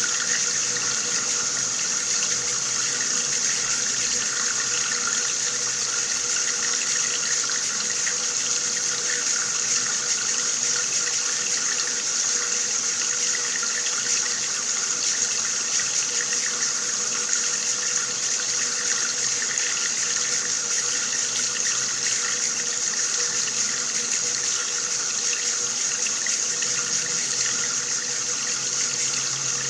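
Water running steadily from a tap, an even splashing hiss with no change.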